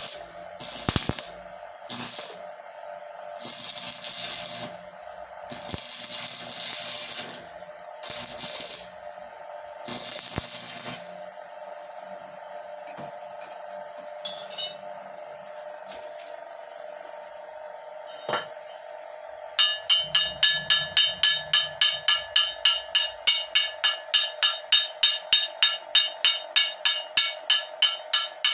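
Homemade stick welder built from a microwave-oven transformer: the welding arc crackles and hisses in about eight short bursts, over a steady hum. About twenty seconds in, fast, even hammer strikes on the metal begin, three to four a second.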